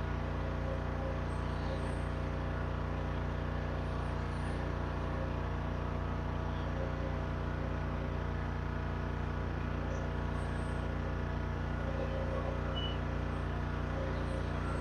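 Steady mechanical hum made of several even, unchanging tones, like a motor or a running appliance.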